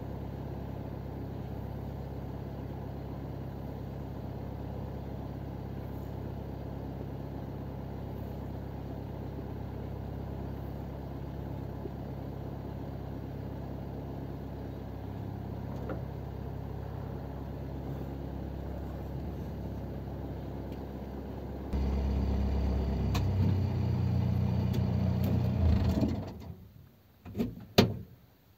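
Boat engine idling with a steady low rumble. About three-quarters of the way through it turns louder for a few seconds, then stops abruptly, and a couple of sharp knocks follow.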